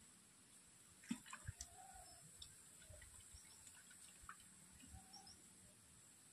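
Near silence: faint outdoor ambience with a steady high hiss and a few scattered faint bird-like chirps. A few soft knocks come about a second in.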